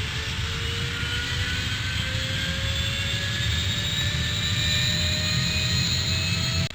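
Airplane flying overhead: a low engine rumble under a whine that slowly rises in pitch and grows a little louder, then breaks off abruptly at the very end.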